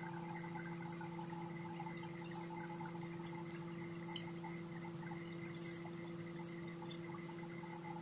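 Quiet eating by hand from a plate: a few faint scattered clicks and small mouth and finger noises over a steady low hum.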